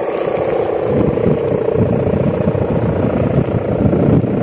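Sendaren kite hummer droning steadily in the wind as a held tone. A rough, fluttering lower layer joins about a second in.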